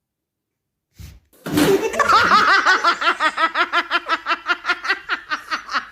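A person laughing hard in a rapid run of 'ha-ha' bursts, about four or five a second, starting after a second of silence.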